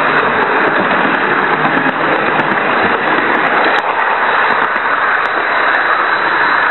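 HO-scale model train running along its track, heard through a small microphone riding on board: a loud, steady rushing noise with faint scattered clicks.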